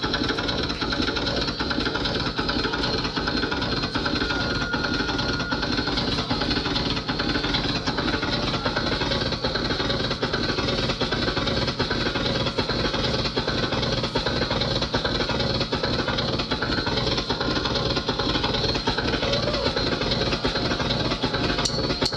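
Steady background din of a live music venue between songs: crowd chatter under a constant hum from the stage, with a brief steady tone about four seconds in.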